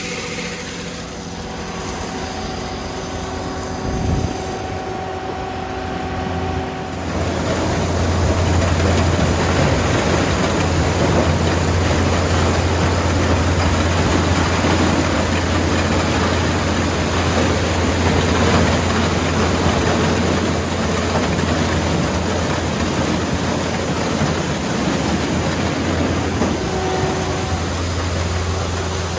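Yanmar corn harvester's engine running steadily, getting louder and heavier about seven seconds in and staying that way. There is a single thump about four seconds in.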